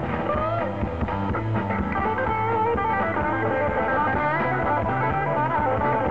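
Live blues-rock band playing: an electric guitar plays a lead line with notes bent up in pitch, over bass guitar and drums.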